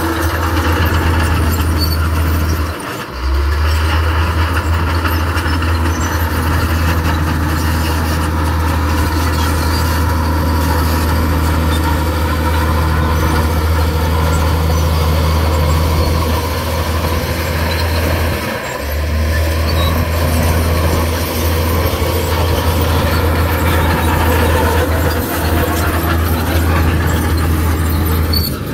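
Heavy diesel earthmoving machinery running steadily under load, with a strong low engine drone. The sound drops out briefly twice, about three seconds in and again past the middle.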